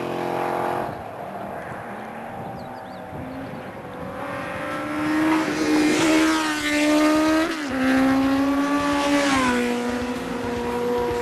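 Sport motorcycle engines revving as the bikes are ridden toward and past on wheelies. The note grows louder and climbs in pitch from about four seconds in, drops around the middle and again near the end as a bike goes by, then holds steady.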